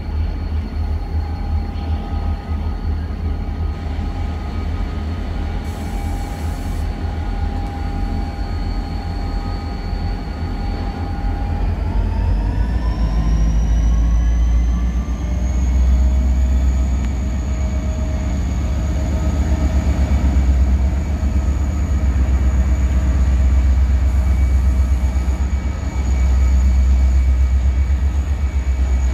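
Renfe class 333 diesel-electric locomotives heading a freight train past, a heavy low engine rumble with a steady whine over it. About halfway through the whine rises in pitch and the rumble grows louder.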